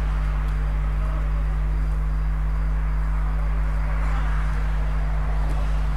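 Steady low electrical mains hum under an even background hiss, with a faint tick about five and a half seconds in.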